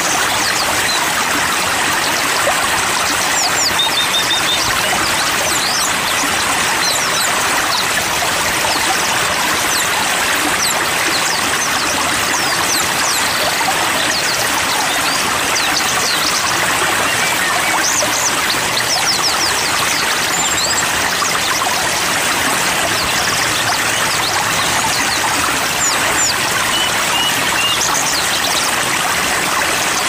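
Steady rush of running water, a stream or waterfall, with small songbirds chirping over it: scattered high, brief notes, quick downward-sweeping chirps and a few short trills.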